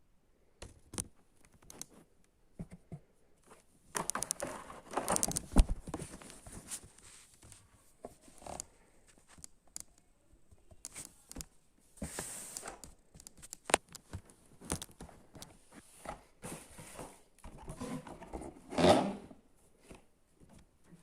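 Packaging being handled and opened: irregular rustling, tearing and clicking, with the loudest bursts about four to six seconds in and again near the end.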